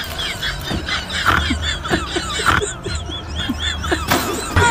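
Rapid series of short, high squeaky chirps, animal-like, over a low steady hum.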